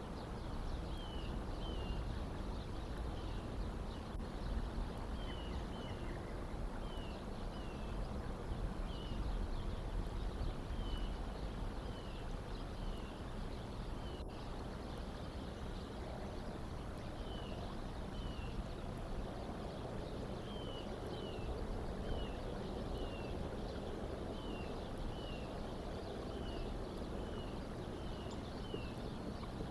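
A small bird repeating short, slurred calls, mostly in pairs, about once a second, over a steady low background rumble.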